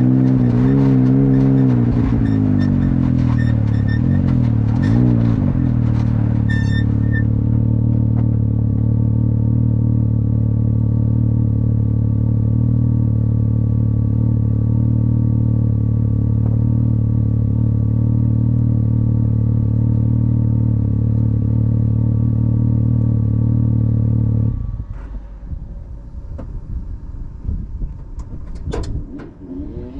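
Can-Am XRC side-by-side's engine running, its pitch wavering up and down for the first few seconds, then holding steady, until it cuts off about 25 seconds in. A few light clicks follow near the end.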